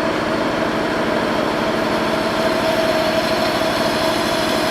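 Lister diesel generator running steadily with an even low throb, powering a three-phase drilling machine as it drills.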